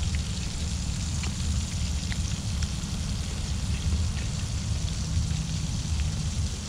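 Hot cooking oil sizzling steadily with a few faint crackles, over a steady low rumble.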